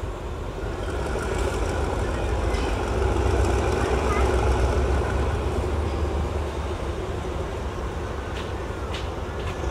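Diesel-electric locomotive engine running with a deep, steady rumble that swells and then eases off, with a few sharp clicks near the end.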